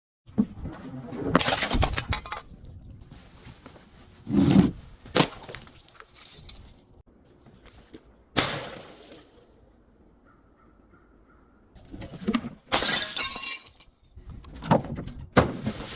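Glass bottles being smashed and crushed: a series of separate crashes and crunches of breaking glass, with a quiet pause of a couple of seconds about ten seconds in.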